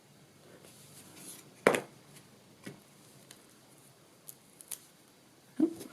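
A few light taps and clicks of MDF craft tags and paper being handled on a work surface, with one sharper knock about a second and a half in.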